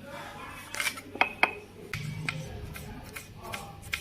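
Metal kitchen utensils clinking and scraping, with a few sharp ringing strikes a little over a second in. A low rumble joins about halfway through.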